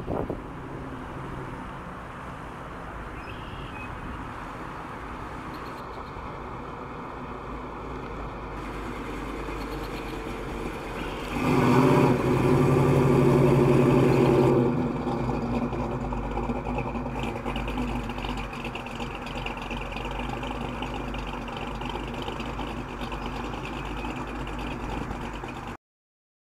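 A 1969 Chevrolet Chevelle's engine and exhaust running as the car drives at low speed. It is loudest for about three seconds midway through as the car passes close by, then goes on at a lower level until it cuts off suddenly near the end.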